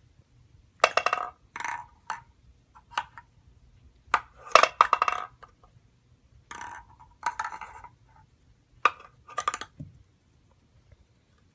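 Wooden Montessori ball-drop box with a plastic ball: a series of short rattling clatters, about eight bursts, as the ball is pushed through the hole in the lid and rattles and rolls through the box, and small hands knock on the wood.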